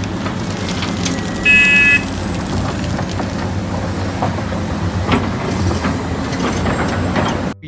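Sound effect of a heavy machine's engine running with a steady rumble, with a short horn toot about a second and a half in; it cuts off abruptly near the end.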